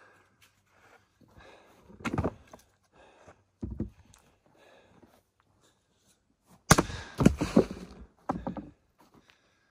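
Axe splitting firewood on a chopping block: a blow about two seconds in, a lighter knock near four seconds, and a heavier blow about seven seconds in followed by several more knocks of wood.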